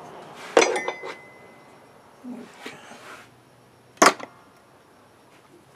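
Sharp metal clinks of a steel chuck key against the wood lathe's four-jaw chuck and cast-iron bed while the lathe is stopped: a cluster of clinks with a short ring about half a second to a second in, a few faint knocks, then one loud clink about four seconds in.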